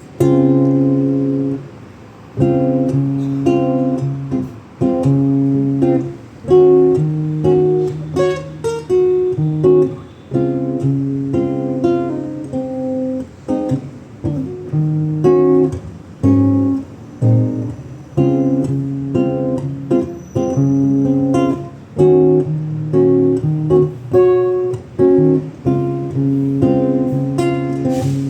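Acoustic guitar strumming a rhythmic chord pattern, the instrumental introduction of a song.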